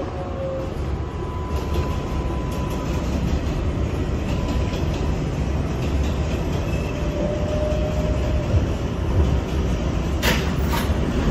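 Inside an R142A subway car running on elevated track: a steady rumble of wheels on rail, with faint whining tones that come and go. A few sharp clacks come near the end.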